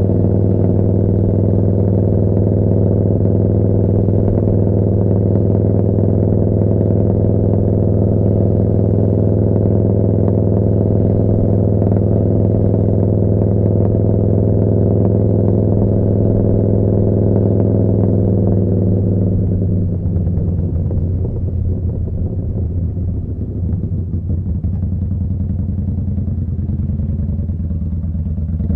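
Yamaha Bolt's air-cooled V-twin running through a Vance & Hines slip-on exhaust, holding a steady cruising note. About two-thirds of the way in the throttle closes and the note falls to a lower, choppier beat.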